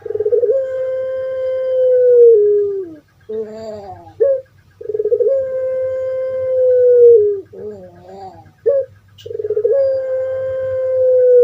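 Puter pelung dove (long-voiced Barbary dove) calling: three long drawn-out calls, each held steady and then dropping at the end, with short wavering coos between them.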